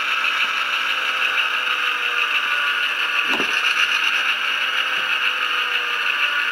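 Steady diesel engine sound from an HO-scale locomotive's DCC sound decoder, played through the model's small speaker, with a brief falling tone about three seconds in.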